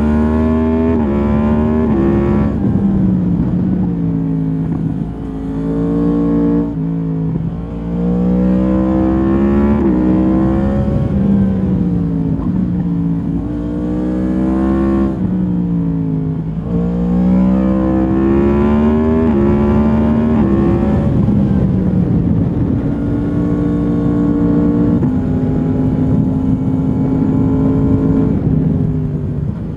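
2022 Yamaha MT-10's crossplane inline-four through its stock exhaust, ridden hard: the engine note climbs repeatedly and drops back at each gear change or roll-off, then holds a steadier pitch in the last third.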